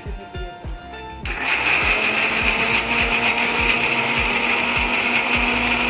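Electric mixer grinder switching on about a second in and running steadily, grinding cooked chana dal.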